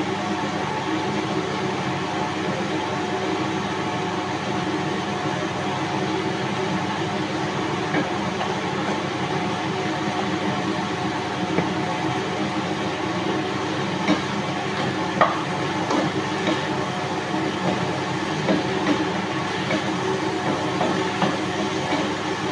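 Steady fan hum, as from the kitchen exhaust fan, running without change. In the second half a few short taps of a wooden spatula against the frying pan stand out.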